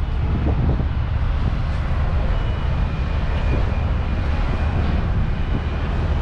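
Steady low rumble of a large car ferry's engines and machinery, heard from the open deck, with wind on the microphone.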